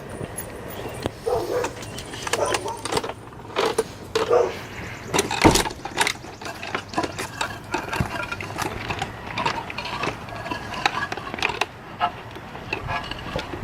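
A run of irregular knocks and clicks, the loudest a single thump about five and a half seconds in, with brief low voices between them.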